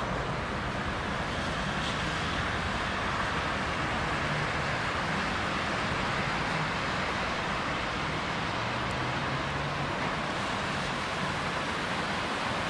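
Steady road traffic noise with vehicle engines running, no siren or horn sounding.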